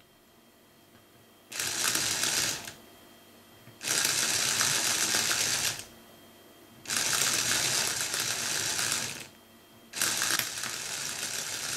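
A small DC electric motor and its reduction gearing whir and rattle in four runs of one to two seconds each, switched on and off, as they drive a pinwheel through a train of gear wheels.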